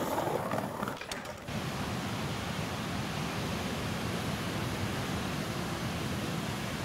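Steady noise of wind and breaking surf on a camcorder microphone, with a brief dip about a second in.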